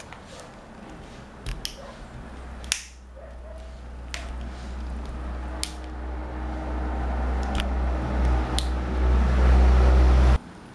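A handful of sharp plastic clicks, about six, as the phone's housing is pried apart, over a low rumble that grows steadily louder and then cuts off suddenly near the end.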